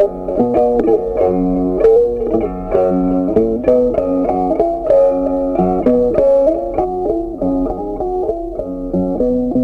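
Background instrumental music: a tune of short, sharply struck pitched notes.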